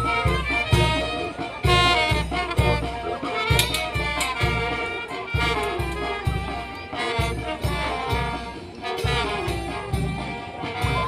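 Brass band playing a tune over a steady low beat, about two beats a second.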